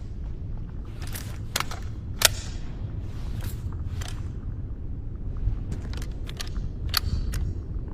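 Springfield M1A rifle firing through a cloth-wrapped suppressor: a series of muffled sharp reports at uneven intervals, the sharpest about two seconds in, over a steady low rumble.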